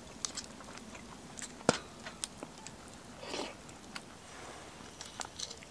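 Close eating sounds of a grilled oyster: chewing with scattered sharp clicks and crackles, one much louder snap about a second and a half in, and a short breath around three seconds in.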